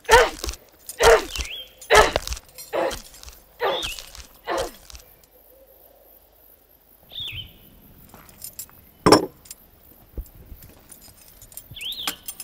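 A run of about six hard blows struck with a hand tool, roughly one a second, stopping about five seconds in. Later comes a single sharp knock and a short bird chirp.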